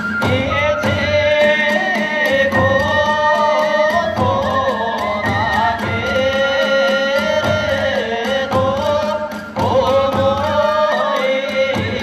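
Kagura hayashi ensemble of drums, small hand cymbals (tebyōshi) and bamboo flute playing a fast, even beat under a high, wavering melody line, with a brief break about nine and a half seconds in.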